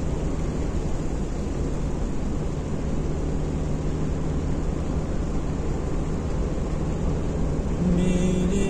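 Steady low road and engine noise heard inside a car's cabin while driving on a wet road. Near the end, music with a voice starts.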